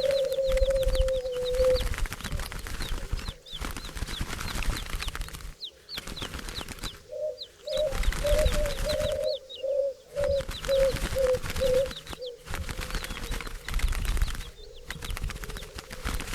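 Doves cooing: one long, slightly falling coo about the first two seconds, then a run of short coos stepping down in pitch in the middle. Quick high chirps of small birds and fluttering wings run underneath.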